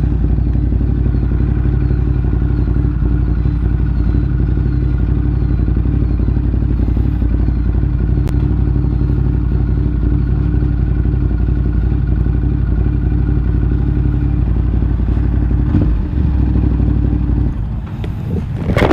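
Ducati motorcycle engine running at a steady engine speed, then falling away sharply a second or so before the end.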